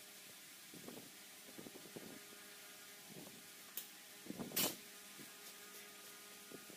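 Faint steady hum of a milling machine, with scattered light knocks and one louder sharp clatter about four and a half seconds in as the plastic gear blank is handled at the arbor.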